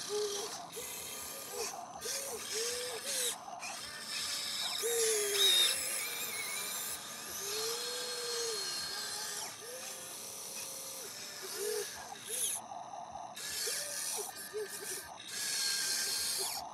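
Radio-controlled toy excavator's electric motors and gearboxes working the boom, arm and bucket. Each movement is a short motor whine that rises and falls in pitch, repeated over and over with brief pauses, with a rattly gear chatter.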